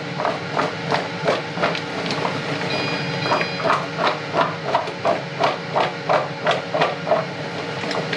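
Diced raw potatoes being shaken and tossed in a bowl to coat them with curry spices. It makes a regular rattling knock about three times a second.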